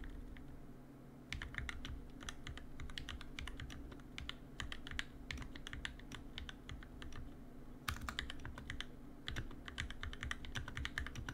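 Fast typing on an NK65 Entry Edition mechanical keyboard fitted with lubed and filmed Durock L2 linear switches: a quick, uneven run of key clacks that starts about a second in, with a brief lull just past the middle.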